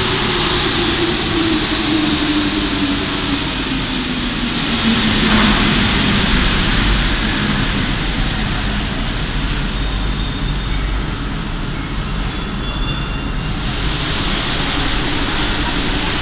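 RATP MP05 rubber-tyred metro train braking into the station, its motor whine falling steadily in pitch over the first six seconds before it stands rumbling at the platform. From about ten seconds in, a high multi-tone door-closing warning sounds for about three and a half seconds.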